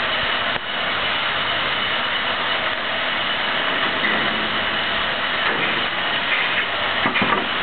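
Steady drone of a heavy engine running, the crane hoisting a marine diesel out of a boat's engine room, with a few short knocks near the end.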